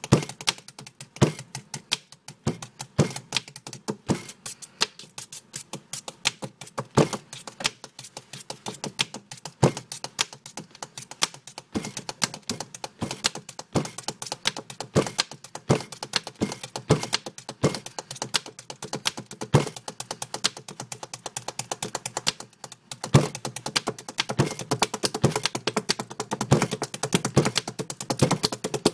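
A beat being tapped out: rapid light clicking taps with heavier thumps mixed in. After a brief break about three-quarters of the way through, the tapping gets louder and busier.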